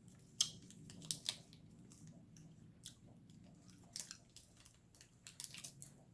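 A person biting and chewing a caramel and sea salt keto fat bar: irregular sharp clicks and mouth noises, loudest about half a second and a second in.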